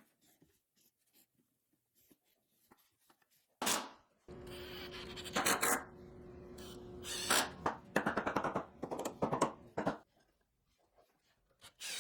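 Workshop sounds: a sharp knock, then a small power-tool motor running with a steady hum, followed by a rapid rattle of clicks, with quiet before and after.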